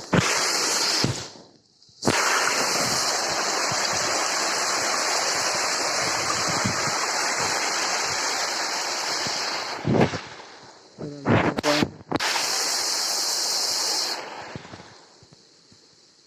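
Steady rush of water from a small waterfall, broken by two abrupt cuts about two and twelve seconds in, then fading away over the last second or two.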